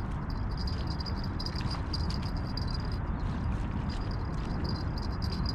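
Steady rushing of wind on the microphone, with a faint high thin whine that keeps breaking off and starting again.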